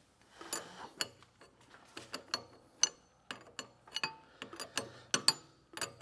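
Wrench work on steel hydraulic hose fittings: irregular sharp metallic clicks and clinks, a few every second, some ringing briefly.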